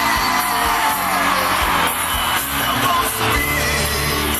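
Live gospel band playing, with electric bass and percussive hits, and a male singer's voice in long sliding notes near the start.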